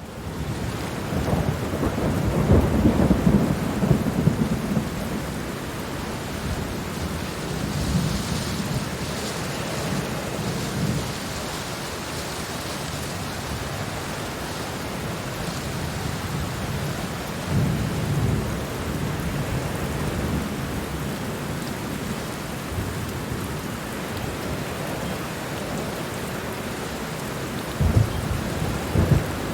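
Heavy rain falling steadily, with deep low rumbles swelling up every several seconds, loudest in the first few seconds and again near the end.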